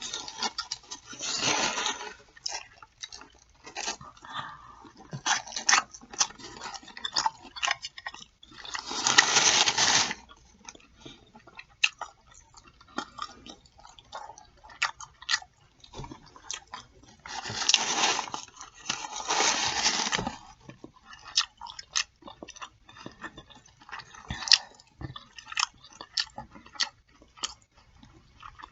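Close-miked eating of pork chops on bread: wet chewing, lip smacking and biting clicks. Three times, a louder burst of paper rustling a second or two long breaks in.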